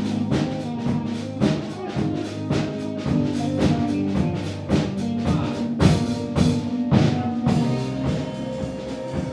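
Instrumental band music: a drum kit keeping a steady beat over bass and held chords.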